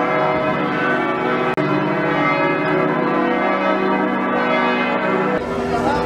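Church bells ringing, several bells sounding together in an overlapping peal, with a brief break about a second and a half in.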